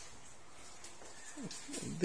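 Quiet room tone in a small room with faint handling noise, then a short low murmur from a man's voice near the end.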